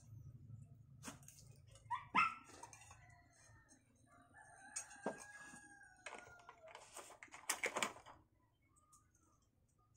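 A rooster crowing: a short call about two seconds in, then a longer held crow about five seconds in, with sharp clicks and taps around it.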